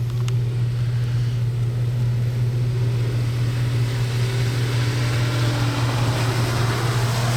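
A vehicle engine idling with a steady low hum, and a hiss that grows louder in the second half.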